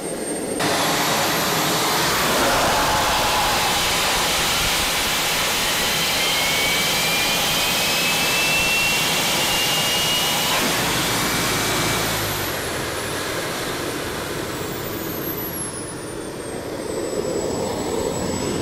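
Small homemade turbojet engine jumps from idle to full power about half a second in, its jet blasting onto a Mi-8 helicopter free-turbine wheel with a loud steady roar and high whine, while a tone climbs slowly as the turbine spins up. From about twelve seconds in the jet's high whine glides down as it winds back toward idle.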